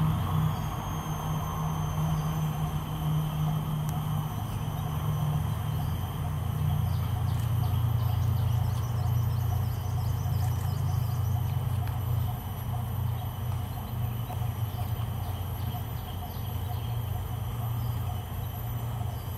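Steady low rumble of distant road traffic, with faint steady high-pitched tones above it.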